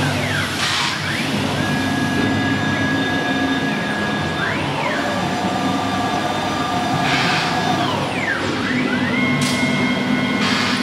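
CIMTECH 1325 CNC router running a job: its axis drive motors whine steadily over the spindle's hum, and the whine falls and rises in pitch each time the gantry slows, reverses and speeds up again. Short bursts of hiss come in between.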